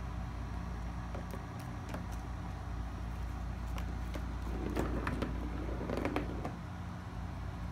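A kitten batting a plastic ball around the track of a circular cardboard scratcher toy: light clicks and taps, then the ball rolling and rattling in the plastic track twice, about halfway through and again a second later, over a steady low hum.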